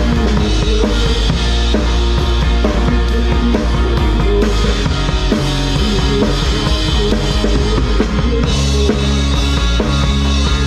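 Live band playing a song with a full drum kit and a heavy, steady low end, without vocals.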